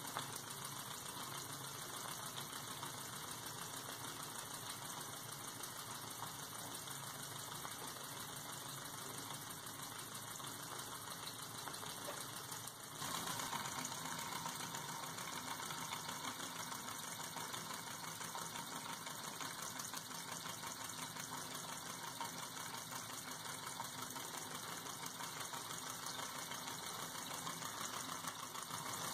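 Small single-cylinder model steam engine running at speed: a fast, even mechanical clatter.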